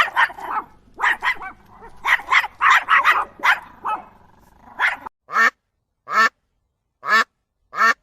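Ducks quacking: a quick run of repeated, overlapping quacks, then, after a sudden change about five seconds in, single quacks spaced about a second apart.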